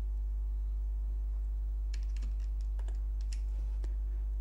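About half a dozen computer keystrokes and clicks, coming from about two seconds in, over a steady electrical mains hum.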